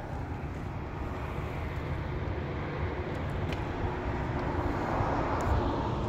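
Steady rumble of a distant engine in the background, slowly growing louder.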